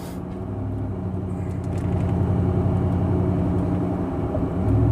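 Truck engine and road noise heard from inside the cab while driving: a steady low hum that grows louder over the first two seconds and again near the end.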